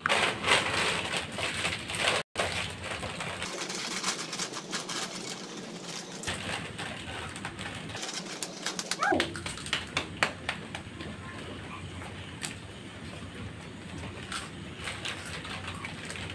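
Plastic-foil chip packets crinkling and rustling as they are torn open and handled, a dense run of small crackles. About nine seconds in there is a short falling squeak.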